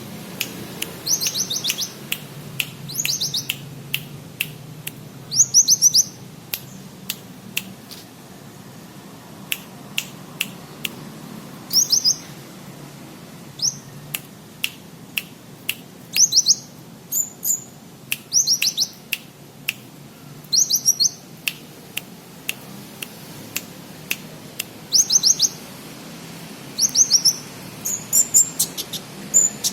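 Sunbird singing a learned song of cricket-like chirps: quick groups of three to five high, thin chirps with single sharp ticks between them, coming at irregular intervals.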